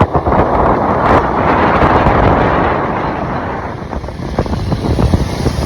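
Loud wind buffeting the microphone, a rushing noise with a low rumble that eases a little in the second half.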